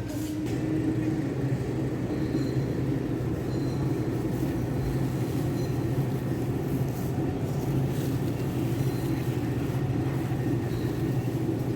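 A vehicle running steadily: an even, low engine drone with road noise.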